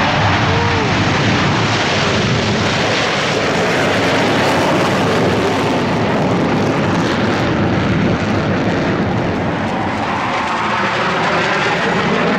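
Loud, steady jet noise from the Blue Angels' Diamond formation of F/A-18 Hornets taking off with afterburners lit, easing slightly about two-thirds of the way in.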